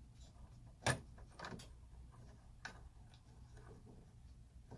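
A few faint clicks and taps of small plastic and metal parts being handled as a hinge pin is slid into the rear C-hub of a Traxxas X-Maxx RC truck; the sharpest click comes about a second in.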